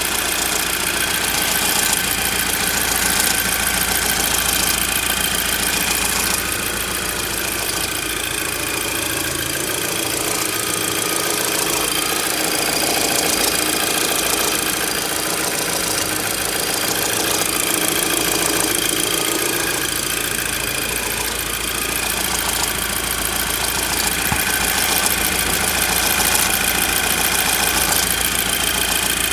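Audi TT engine running steadily at idle with a fast metallic ticking rattle over it: the sign of a worn cam chain and tensioner, which replacing them cured.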